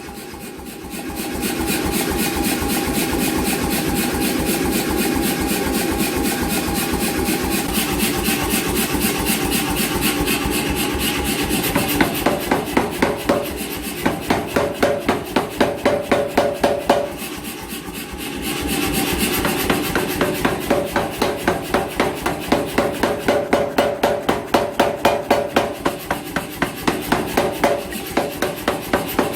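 An 88 lb C41 self-contained power hammer running and striking hot steel in a rapid, even train of blows. The blows ease briefly near the start and again about halfway through, and are heavier in stretches.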